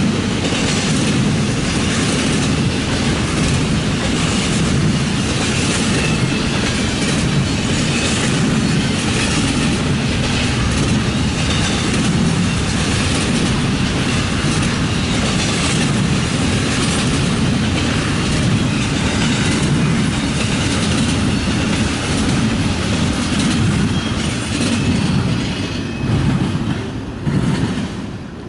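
Norfolk Southern freight train's cars rolling past, their wheels clicking steadily over the rail joints with some wheel squeal, and the sound starts to fade near the end.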